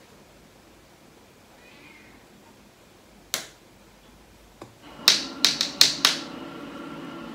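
Sharp clicks and clatter of makeup cases being handled: one click about three seconds in, then a quick run of five close together near the end.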